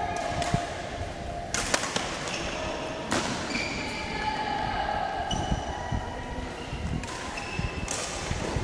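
Badminton racket strokes on the shuttlecock: several sharp cracks a second or more apart, with short high squeaks of shoes on the court between them.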